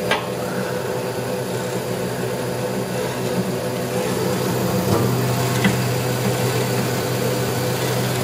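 An 18-inch vertical band saw's 230-volt three-phase motor running at low speed, a steady hum. A click right at the start and another about five seconds in, after which the hum gets louder.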